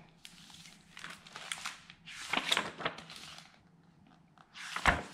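A hardcover picture book being opened and its pages turned on a countertop: paper and jacket rustling and sliding in several bursts, then a sharp thump about five seconds in.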